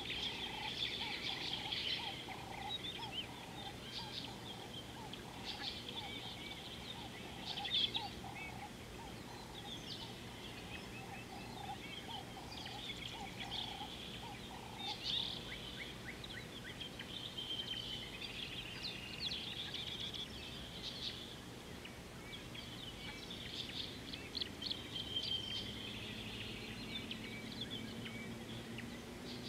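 Several wild birds calling at once: high chirps and trills throughout, and a lower call repeated over and over for about the first half.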